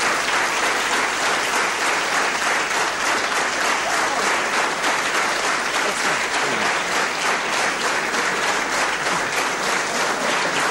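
A large theatre audience applauding steadily, many hands clapping at once.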